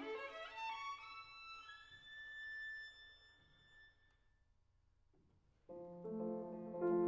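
Solo violin playing a quick rising run of notes up to a high held note that fades away, leaving a brief near-silent pause. Near the end the piano comes in with full, sustained chords.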